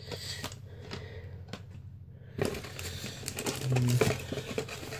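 Small accessories and packaging being handled out of a box: rustling with a run of light clicks and knocks, loudest about two and a half and four seconds in.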